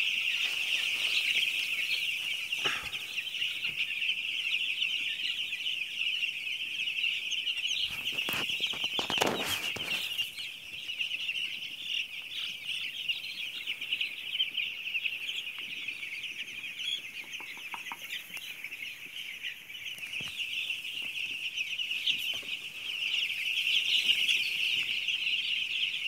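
A large flock of young chicks peeping together: a dense, continuous, high-pitched chorus of overlapping cheeps.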